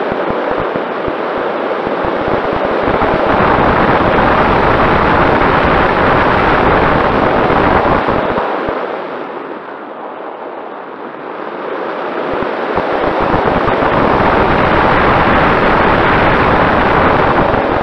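Air rushing and buffeting over the microphone of the onboard camera on a Mini Talon RC plane in flight, with a faint steady tone from its Sunnysky 2212 brushless motor underneath. The rushing eases for a couple of seconds around the middle, then rises again.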